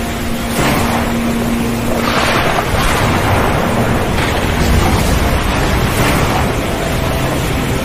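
Stormy wind-and-surf ambience: a steady rushing noise that surges and falls back every second or two, with faint steady tones underneath.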